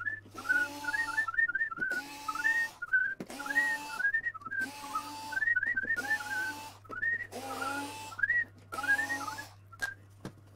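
Cordless screwdriver run in about eight short bursts of roughly a second each, each rising briefly in pitch as the motor spins up, backing out screws from the end of a Yamaha M3000 mixing console. A high chirping whistle goes on behind it throughout.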